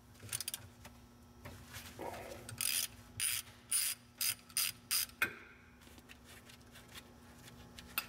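Socket ratchet with an 8 mm Allen bit clicking in short strokes as it backs out the bolt on a VW front torsion arm. There are a few light clicks at first, then a run of about six quick ratchet bursts, roughly two a second, that stops about five seconds in.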